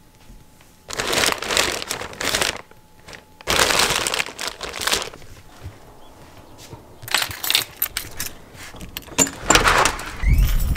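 Clear plastic wrapping crinkling in two long bursts, then a bunch of keys jingling in short bursts, with a door handle being worked near the end.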